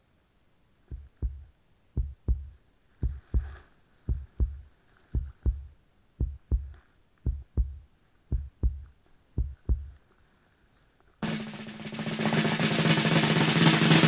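A heartbeat sound effect: deep double thuds, lub-dub, about once a second. From about eleven seconds in, a loud hissing swell rises and breaks off suddenly near the end.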